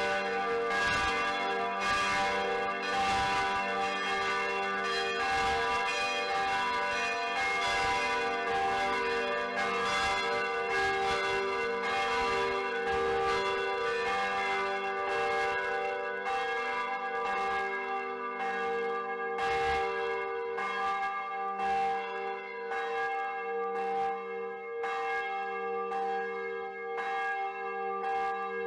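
Church bell being rung, struck over and over so that each stroke's ringing overlaps the next. The strokes come about twice a second at first and thin out after about halfway.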